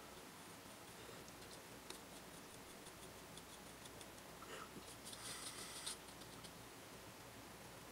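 Faint scratching and light ticks of a small paintbrush worked over a plastic model wall, against quiet room tone, with a short louder scratch about five to six seconds in.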